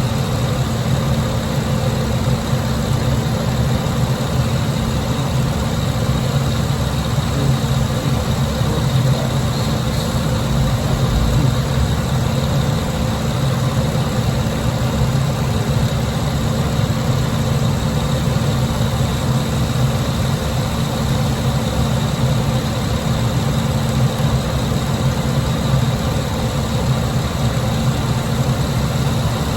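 Car engine idling steadily with the air conditioning switched on full, its compressor running while the system is charged with refrigerant.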